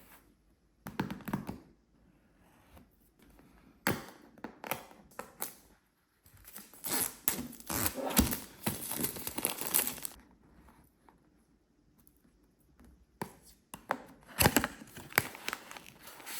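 Box packaging being torn open and crinkled by hand, in several bursts of tearing and rustling separated by short pauses.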